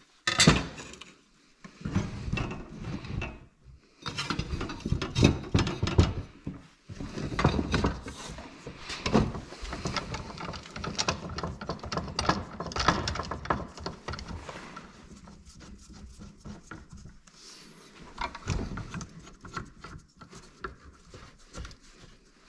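Steel tube and cut sheet-steel gusset plates being handled on a workbench while bar clamps are slid into place and tightened to hold the tube along the bench edge: irregular clanks, knocks and clamp clicks, growing sparser in the second half.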